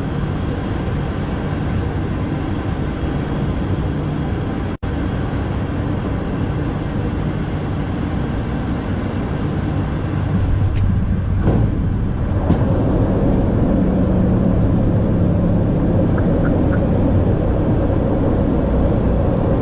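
ATR 42 turboprop engines and propellers running, heard inside the cockpit as a steady loud drone. About ten to twelve seconds in, a few sharp knocks come and the noise grows louder and stays up, with a steady low hum.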